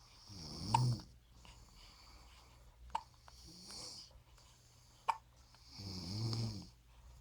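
Elderly woman snoring: two long, loud snores about five seconds apart, with a softer one between them. Two short sharp clicks come in the pauses.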